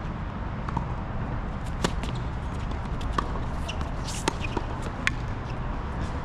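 Tennis rally: several sharp pops of balls being struck and bouncing at irregular intervals, with footsteps and shoe scuffs, over a steady low rumble.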